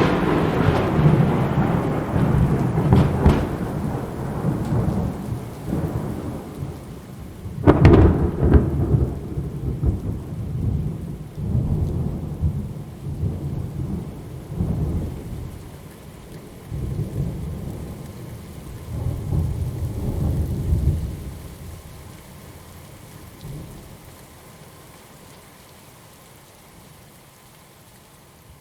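Thunder: a long rumble dying away, a second sharp crack about eight seconds in, then several rolling rumbles that fade out over the last several seconds.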